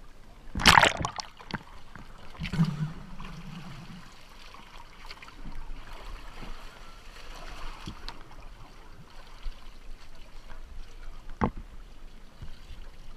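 Seawater splashing and sloshing around a boat's swim ladder as a diver climbs out of the water onto the platform, with a loud splash just under a second in and a thump about two and a half seconds in. A single sharp knock comes near the end.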